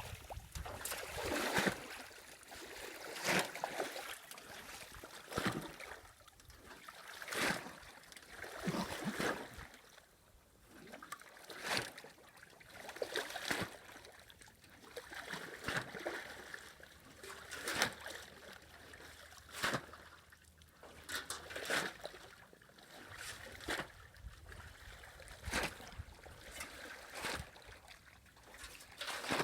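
Water splashing in a slow, regular rhythm, about one splash every two seconds, with trickling and dripping in between.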